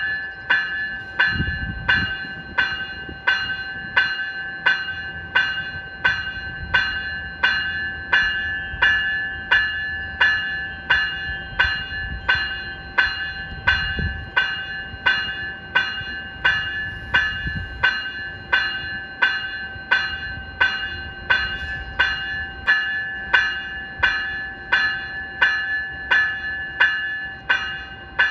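Graham-White electronic bell (E-Bell) on an NCTD Coaster cab car ringing steadily. It gives a high-pitched ding about three times every two seconds, and each ding dies away quickly.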